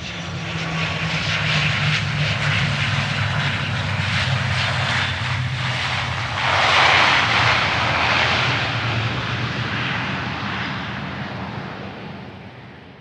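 Airliner engines and rushing airflow heard from inside the passenger cabin: a steady low hum under a broad roar of noise. It swells louder a little past halfway and fades out near the end.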